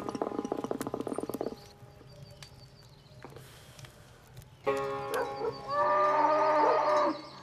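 A plucked string instrument played in rapid tremolo for the first second and a half, then cattle mooing from about five seconds in, with long drawn-out moos.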